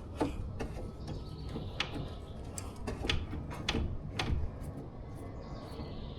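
Hand tools and metal parts being worked on a garden tractor's pedal assembly: a string of irregular sharp metallic clicks and knocks, over a low steady background rumble.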